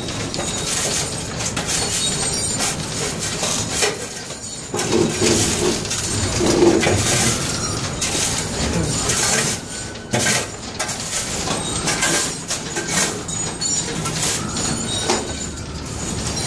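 Loose metal shavings scraping and clinking as they are raked and scooped off the floor, in a steady clatter of many small metallic clicks.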